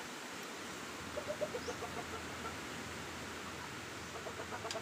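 A chicken clucking in quick runs of short notes, once about a second in and again near the end.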